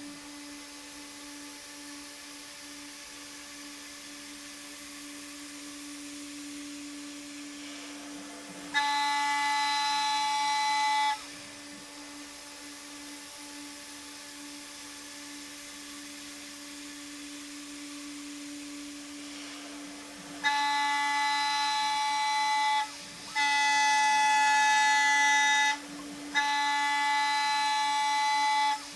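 CNC router spindle (CNCDepot S30C on an Avid Benchtop Pro) running with a steady hum, its end mill cutting aluminum in separate passes. Each pass brings a loud, high-pitched ringing tone: once for a couple of seconds about 9 s in, then three passes of about 2.5 s each from about 20 s on.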